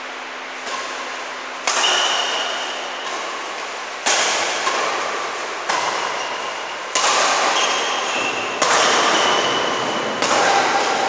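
Badminton rackets striking a shuttlecock in a rally, about eight sharp hits roughly a second or so apart, each ringing on in the echo of a large bare hall. Short squeaks sound between some of the hits.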